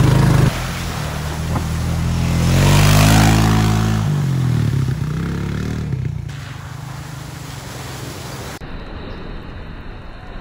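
Off-road vehicle engine revving up and easing off as it drives through deep flood water, with water rushing and splashing. The sound changes abruptly twice, ending with a Jeep Wrangler driving through a flooded crossing.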